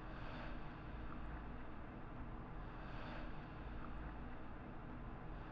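Quiet ambient outro of an indie R&B track: a low steady drone or rumble with soft hissy swells coming back about every three seconds and a few faint ticks.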